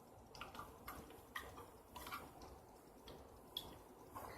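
Faint, irregular small clicks and ticks as slime is pressed and worked into its small plastic container.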